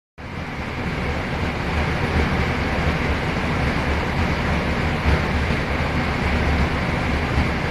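Steady in-flight cockpit noise of an airliner: a continuous rush of airflow over a low engine drone.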